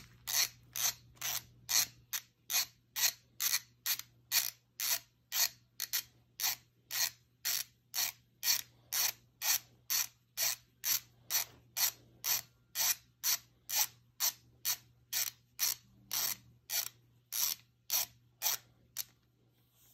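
Ratchet torque wrench clicking about twice a second as it tightens the camshaft gear bolt of an Audi 2.0T engine. The clicks stop about a second before the end.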